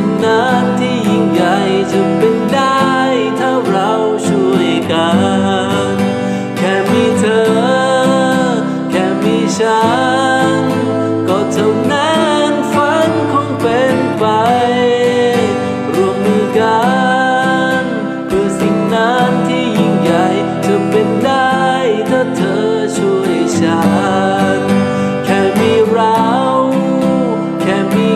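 Acoustic guitar strummed in steady chords while a man sings a melody along with it.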